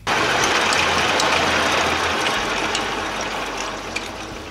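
Atlas metal lathe running while a twist drill in the tailstock chuck bores a deep hole in a metal workpiece. A steady scratchy cutting noise with scattered sharp ticks sits over the low hum of the lathe's motor and fades slowly toward the end.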